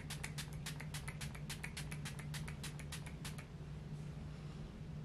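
Rapid spritzes from a makeup setting spray's pump-mist bottle (Estée Lauder Set + Refresh Perfecting Makeup Mist), about seven short hissing puffs a second, stopping about three and a half seconds in, over a steady low hum.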